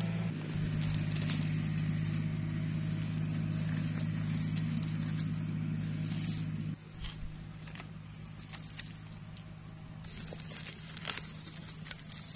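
A steady, low motor drone holding one pitch, which drops abruptly in level about seven seconds in and carries on more quietly. Dry leaf litter crackles underfoot in the last few seconds.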